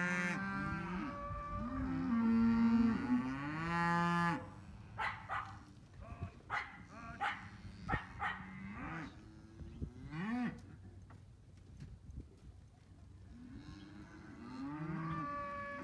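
Several cattle mooing: long, overlapping calls through the first four seconds, a shorter one about ten seconds in, and more starting up near the end. Between the calls come a scatter of short knocks.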